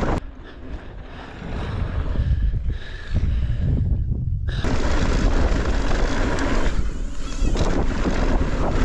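A mountain bike riding down a dirt trail: rumble and rattle of the bike, with wind buffeting the microphone. Much quieter for about four seconds near the start, then loud again.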